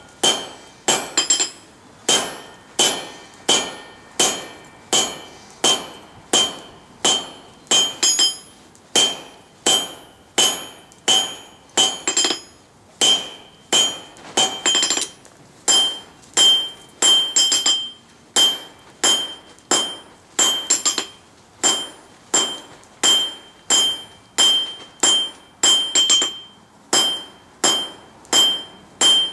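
Hand hammer striking red-hot coil spring steel on an anvil in a steady rhythm, about one and a half blows a second, each with a clear ringing note from the anvil: drawing out the taper of an awl.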